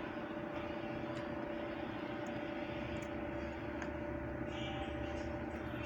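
Steady mechanical hum of workshop machinery, an even drone with two steady tones in it and a few faint clicks.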